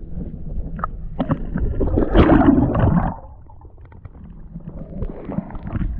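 Muffled sloshing and gurgling of water heard through an underwater camera's housing. It swells to a loud splashy surge about two to three seconds in as the released pike kicks away, then drops off suddenly.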